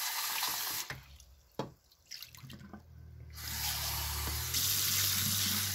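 Bathroom sink faucet running as a white plastic basin is rinsed under it. The water runs for about a second, drops away for about two seconds, then runs steadily again from about three seconds in.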